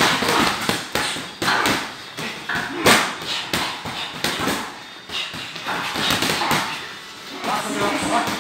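Boxing gloves landing punches in sparring: an irregular run of sharp slaps and thuds, the loudest about three seconds in.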